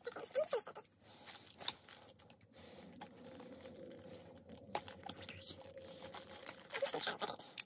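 Plastic poly mailer crinkling as it is sliced open with a utility knife, with scattered sharp clicks.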